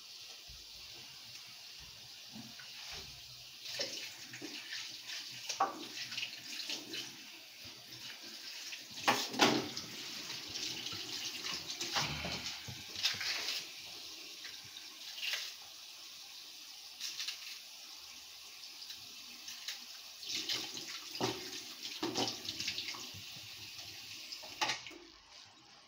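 Kitchen tap running into a sink with a steady hiss while something is washed under it, with scattered knocks and clatters against the sink. The water shuts off near the end.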